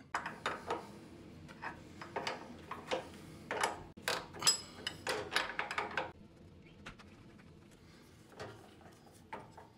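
Irregular metallic clicks, clanks and rattles from working loose the mounting bolts of an industrial sewing machine's old clutch motor, some with a high ring, busiest for the first six seconds and then only a few faint knocks.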